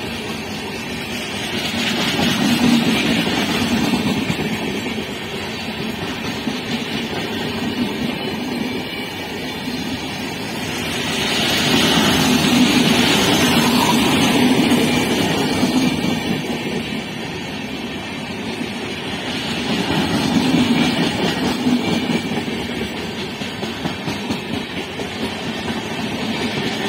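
Indian Railways express train's passenger coaches passing close by at high speed: a loud, continuous rushing rumble of wheels on the rails that swells and eases a few times.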